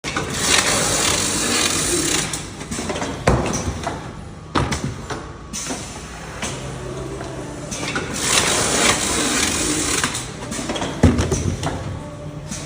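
Automatic case erector with a bottom taper running through its box-forming cycle. Each cycle is a couple of seconds of hissing and rattling followed by sharp knocks. The cycle repeats about seven and a half seconds later.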